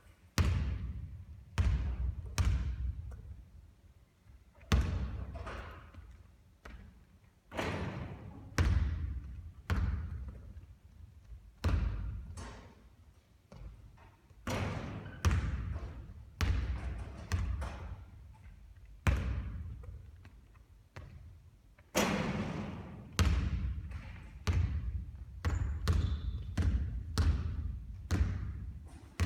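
A basketball bouncing again and again on a court during repeated three-point shooting. It makes a series of sharp thuds a second or two apart, each with a long fading echo.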